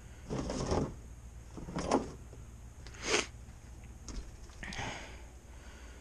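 Four short scraping, clunking handling sounds about a second apart, as parts or tools are moved and set in place.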